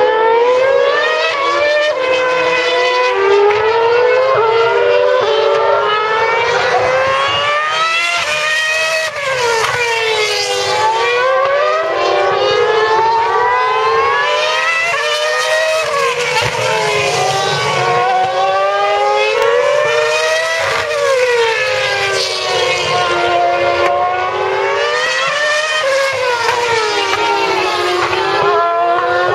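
2012 Formula One cars' 2.4-litre V8 engines at high revs, several heard at once, each pitch climbing through the gears and dropping on the downshifts into corners.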